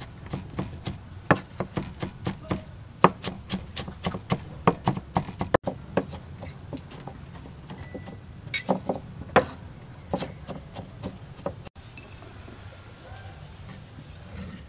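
Cleaver chopping red onion on a round wooden chopping block: rapid, uneven knocks of the blade striking the wood through the onion. Near the end the chopping stops, leaving only low background.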